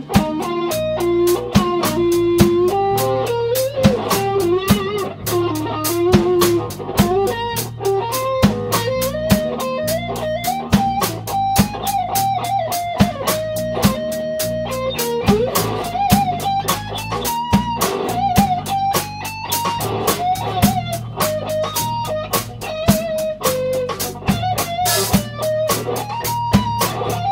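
Live instrumental rock band: electric guitar playing the lead melody in held notes over bass guitar and a steady drum-kit beat.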